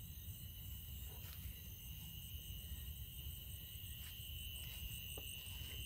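Faint chorus of night insects, crickets trilling: one steady high trill and another pulsing higher still, over a low rumble, with a few faint ticks.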